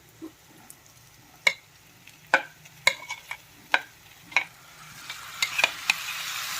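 Spoon tapping and scraping soaked puffed rice into a hot pan of fried onion, tomato and spices: a handful of sharp metal clinks, then sizzling that builds from about five seconds in as the wet puffed rice meets the hot pan.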